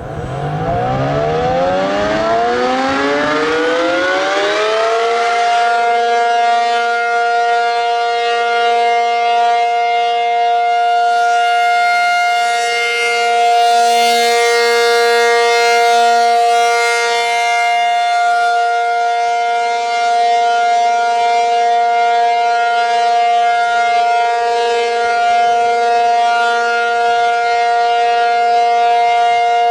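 ACA Penetrator-50 (P-50) 8/12-port dual-tone outdoor warning siren starting up: its pitch winds up over about five seconds, then holds a steady two-note chord, the alert signal, sounding healthy.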